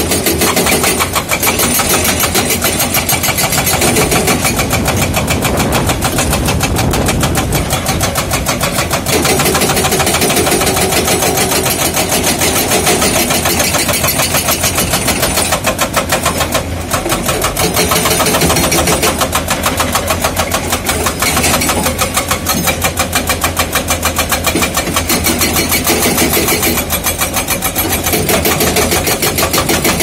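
A Komatsu JTHB210 hydraulic breaker on a Komatsu PC210-10M0 excavator hammers rock in rapid, steady blows over the excavator's diesel engine running under load. The hammering stops for a moment just past halfway, then carries on.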